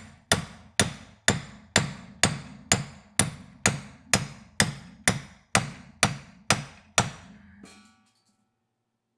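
Steady hammer blows, about two a second, driving a new kingpin bushing into an early Ford spindle. Each blow rings like struck steel. The blows stop about seven seconds in, followed by a brief clatter.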